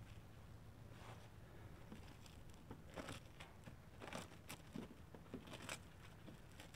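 Thin plastic protective film crinkling and tearing as it is peeled off a new headlamp lens, in faint, irregular rustles and crackles.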